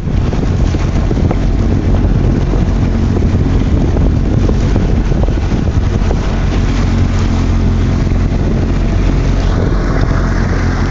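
Kawasaki Ultra 300X jet ski's supercharged four-cylinder engine running steadily under way, with wind buffeting the microphone.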